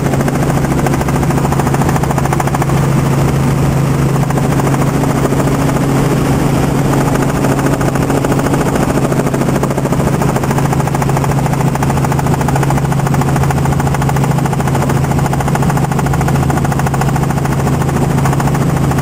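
Helicopter in flight, heard from inside the cabin: steady rotor and engine noise with a fast, even chopping pulse over a strong low hum.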